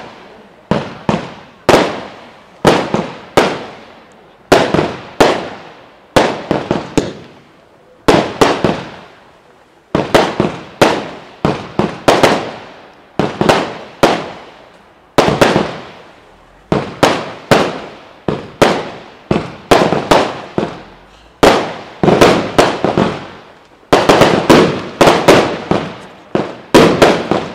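A consumer fireworks battery (cake) firing shot after shot: sharp bangs with short echoing tails, about one to two a second, sometimes in quick pairs or triples, with brief lulls between volleys.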